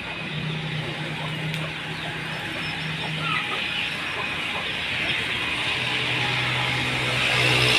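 Aviary background of birds chirping and clucking over a steady low hum, growing slightly louder toward the end.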